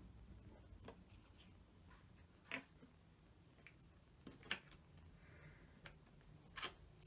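Near silence broken by a few faint, sharp clicks and taps, a second or two apart, from hands handling small wires and plastic parts.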